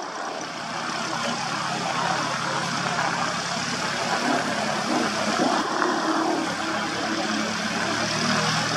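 A light aircraft's piston engine running steadily at low power: a steady low engine hum under a broad rushing noise, growing a little louder over the first two seconds.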